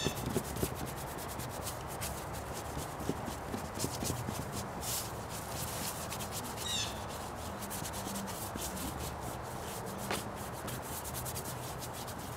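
Paint being rubbed across a board panel by hand, a continuous scratchy rubbing with many small scrapes.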